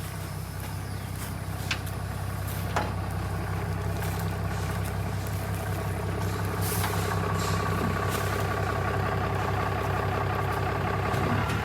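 Truck engine running steadily at low speed, slowly getting louder, with a steady whine joining in about two-thirds of the way through. Two sharp clicks sound near the start.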